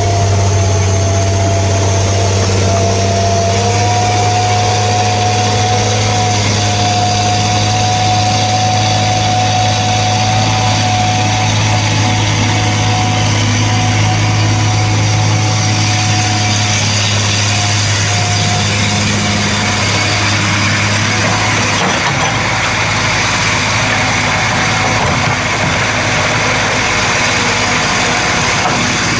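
Heavy excavator's diesel engine running steadily, a deep hum with a thin steady whine over it. About 22 seconds in the deep hum drops away and the sound turns noisier.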